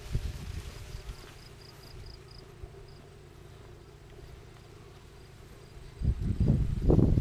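An insect chirping: a quick run of short, high chirps at about six a second that thins out and fades after two and a half seconds. Loud, low rumbling bursts of wind on the microphone come in near the end.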